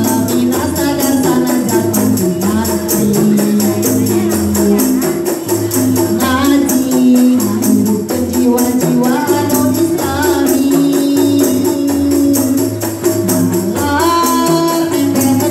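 Qosidah ensemble playing: women's voices singing a devotional melody over tambourines and rebana frame drums. The tambourine jingles are shaken in a steady rhythm of about four strokes a second.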